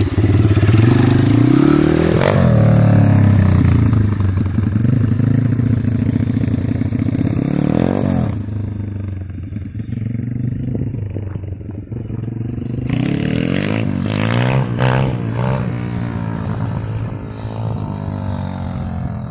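Single-cylinder four-stroke engine of a TaoTao DBX1 140cc pit bike, breathing through an aftermarket 26mm carburettor and a slip-on silencer, revving up and dropping back several times as the bike pulls away, then fading as it rides off.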